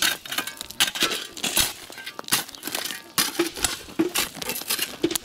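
Shovels digging into and tossing crushed stone: repeated gritty scrapes and crunches, with loose stones clinking.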